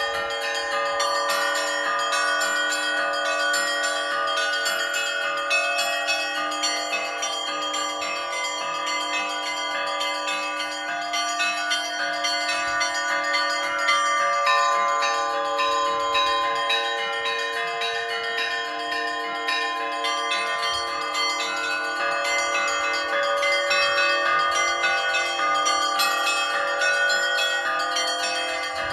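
Orthodox church bells rung together in a continuous peal: small bells struck in quick succession over the lingering ring of larger bells, with no pause.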